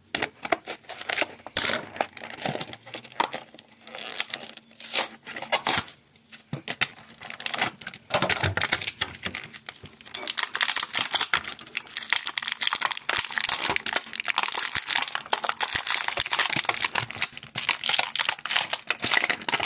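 Plastic toy packaging being torn open and crinkled by hand to unbox a small action figure: irregular crackling and tearing, scattered at first and nearly continuous from about halfway through.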